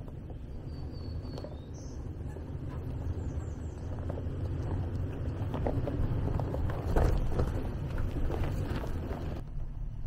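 Toyota 4Runner crawling slowly down a rocky trail: a low engine rumble with tyres crunching and rocks clicking under them, growing louder as it nears and loudest about seven seconds in, then cut off abruptly near the end.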